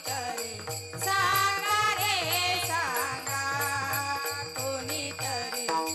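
Female singing of a Marathi gaulan devotional song, coming in about a second in, over a harmonium, a two-headed barrel drum (mridang) keeping a steady beat of about three to four strokes a second, and small hand cymbals (taal) ringing on the beat.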